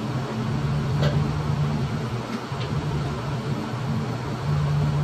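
Steady low mechanical hum of machinery running, with a few light clicks about a second in and again just past the middle.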